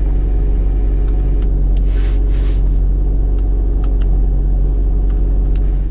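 ZAZ Chance's 1.3-litre Melitopol (MeMZ) petrol engine idling, heard from inside the cabin as a steady low rumble. A few faint clicks come from the car stereo's buttons being pressed.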